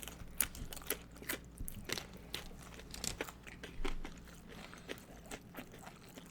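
Close-up crunching and chewing of tortilla chips: irregular sharp crunches of loaded nachos being bitten and chewed.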